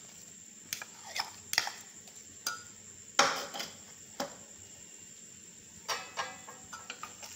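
A metal spoon and bowl clinking and scraping against a metal cooking pot as crumbly khoya is scraped onto roasted vermicelli. There are several sharp clinks with short ringing, the loudest about three seconds in.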